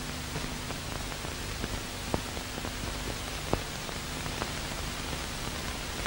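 Steady hiss with scattered clicks and crackles and a faint low hum: the noise floor of an old tape or film soundtrack, with no programme sound on it. The loudest clicks come about two seconds and three and a half seconds in.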